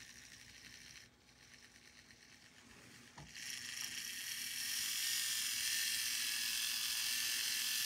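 Gilbert HO-scale ALCO DL600 locomotive's electric motor and nylon gear drive under test power. After a small click about three seconds in, a steady whir with a thin high whine swells over the next two seconds and then holds even: the freshly cleaned and oiled mechanism running freely.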